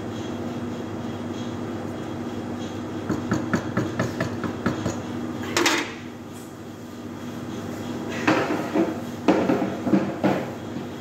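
Kitchen clatter: a run of light knocks and clicks a few seconds in, a sharper clatter around the middle, and another cluster of knocks and bangs near the end, over a steady background hum.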